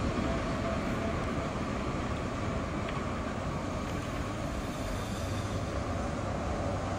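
Electric tram running away along its rails, its rumble fading slowly as it goes into the distance.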